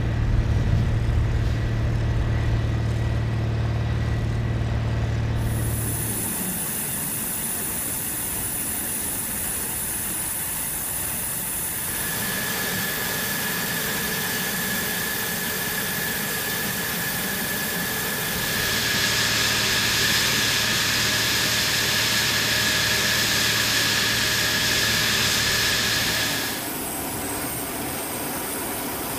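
Jet engine running on a flightline: a steady whine and hiss with a sustained high tone, the sound changing abruptly a few times between shots.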